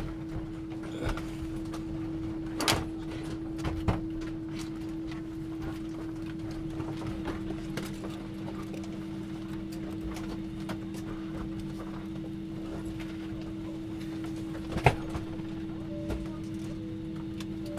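Steady hum inside a Boeing 777-300 cabin parked at the gate, with a second, lower hum joining about seven seconds in. A few sharp clicks stand out over it, the loudest near the end.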